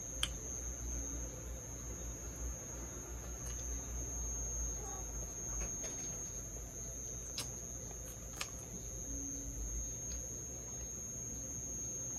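Quiet chewing, with a few sharp clicks of mouth and food sounds. Under it runs a steady high-pitched whine and a low hum.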